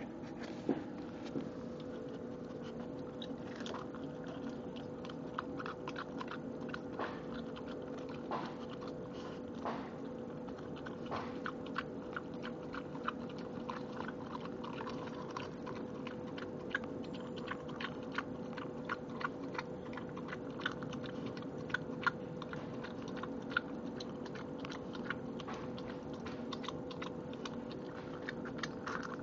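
Rottweiler biting into a raw egg on concrete, crunching the eggshell and licking at the contents, with many small irregular clicks and crackles. A steady low hum runs underneath.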